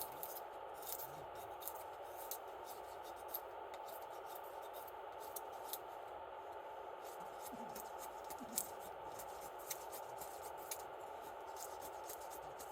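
Wood campfire crackling: irregular sharp pops and snaps over a steady rushing hiss.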